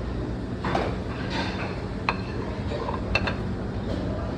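Utensils clinking against dishes, with two sharp ringing clinks about two and three seconds in and some softer scraping before them, over a steady low background hum.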